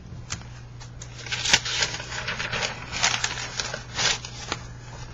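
Lined notebook paper being flipped and handled close to the microphone: a run of crisp paper rustles and crackles lasting about three and a half seconds.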